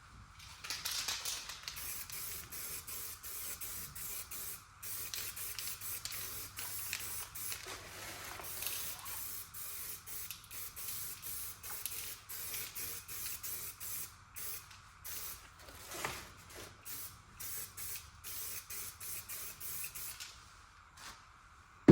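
Aerosol can of spray primer being sprayed in many short bursts, a hiss that keeps stopping and starting until near the end. A sharp thump comes at the very end.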